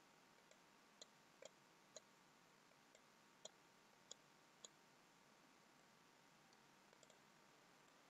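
Faint computer mouse button clicks, a scattering of single sharp clicks about half a second to a second apart, against near silence.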